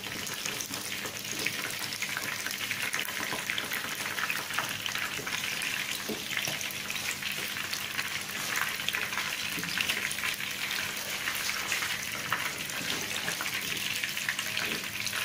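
Batter-coated chicken wings deep-frying in plenty of hot oil: a steady, dense crackling sizzle.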